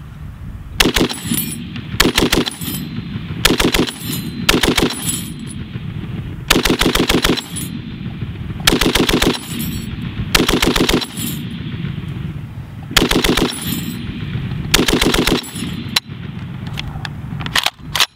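Browning M1919A6 belt-fed .30-06 machine gun firing on full auto in about nine short bursts of a few rounds each, with pauses of a second or so between them. Near the end there are only a few faint clicks.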